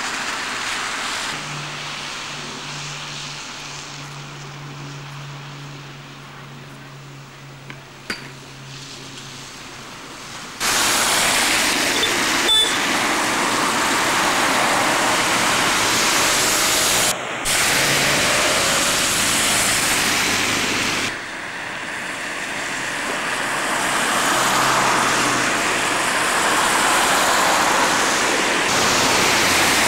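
Cars driving on slush-covered roads, with a steady rushing tyre noise; a car passes near the end. The first ten seconds are quieter, with a low steady hum.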